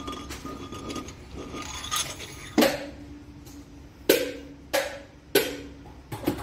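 A single cylinder head of a WD615 truck diesel being worked down over the head studs onto the block: metal scraping and rubbing, then about five sharp metal clanks, each with a short ring, as it knocks against the studs and settles.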